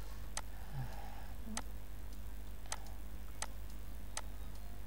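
Computer mouse clicking about five times at irregular intervals, sharp single clicks, over a steady low hum.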